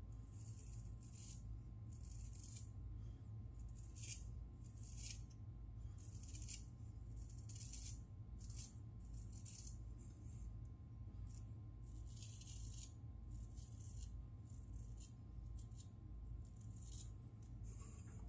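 Faint short scratches of a Parker adjustable shavette's blade cutting stubble on the neck against the grain, one stroke after another about once a second in irregular runs, over a steady low hum.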